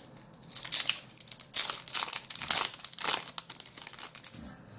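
Crinkling foil wrapper of a Yu-Gi-Oh booster pack being opened and handled, a rapid run of crackles that dies away near the end.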